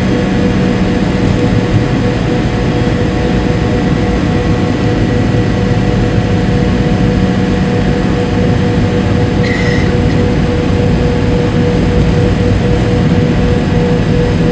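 Steady cabin noise of a McDonnell Douglas MD-83 airliner taxiing: the drone of its rear-mounted Pratt & Whitney JT8D turbofan engines with a steady whining tone, over a low rolling rumble. A brief high-pitched sound cuts in about nine and a half seconds in.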